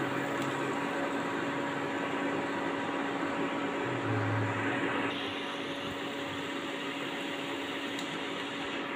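Steady whirring hiss with a constant low hum, like a kitchen appliance's fan running; the level drops slightly about five seconds in.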